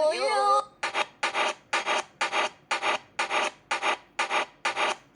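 Brief sped-up cartoon singing, then rhythmic rasping, scraping strokes, about three a second, from about a second in.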